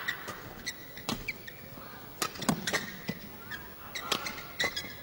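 Badminton rackets striking the shuttlecock during a fast rally: a string of sharp, irregular cracks, sometimes two in quick succession.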